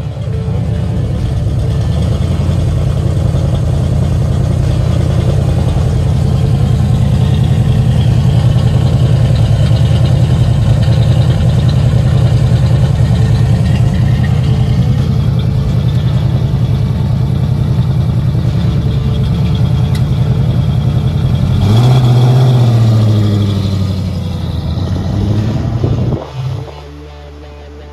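1969 Ford Mustang's 351 Cleveland V8 idling steadily through its dual exhaust, then revving up and down as the car pulls away about three-quarters of the way through. The sound drops off sharply shortly before the end.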